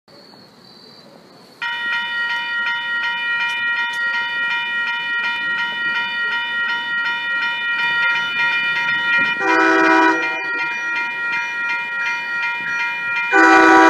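A railroad grade-crossing bell starts ringing about one and a half seconds in, a steady repeated ring while the crossing is active for an approaching train. An MBTA commuter train's horn sounds twice, about four seconds apart, the second blast louder and still sounding at the end.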